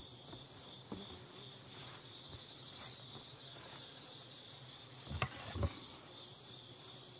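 Steady chirring of crickets in the background, a constant high-pitched chorus. Two short dull knocks sound about five seconds in, with a fainter one about a second in.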